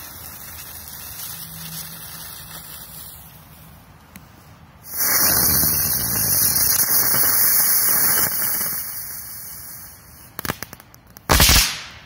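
Komet 'Osa' firecracker: the lit fuse sizzles for about three seconds. Then a loud hissing spray runs for about five seconds, followed by a few crackles and a sharp bang near the end.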